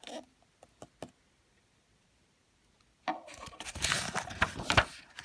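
Paper rustling and scraping as a picture book's page is turned, starting about three seconds in after a few faint ticks.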